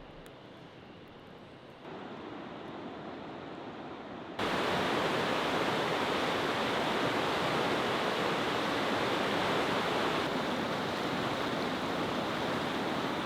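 Steady rushing water noise with no distinct events. It steps up slightly about two seconds in, then jumps sharply louder just over four seconds in and holds there.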